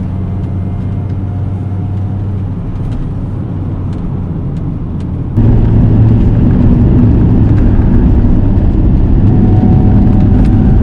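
Supercharged 1.6-litre four-cylinder engine of an R53 Mini Cooper S running at steady revs while the car is driven. About halfway through the sound jumps suddenly louder and rougher and stays that way.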